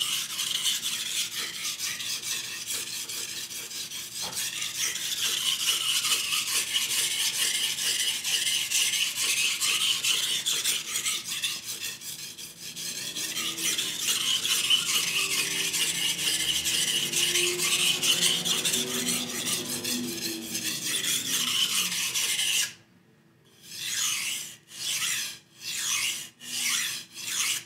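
Knife blade being stroked back and forth on a wet medium-grit (700) whetstone, a continuous scraping rasp, the edge pulled across the stone under pressure to raise a burr on the knife's back side. Near the end the steady scraping stops briefly, then comes as about six short separate strokes.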